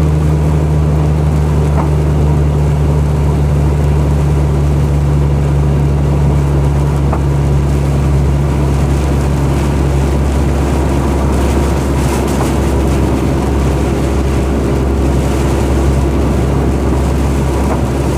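Vehicle engine running steadily with road noise, heard from inside the moving cab; the low hum shifts slightly in pitch about ten seconds in.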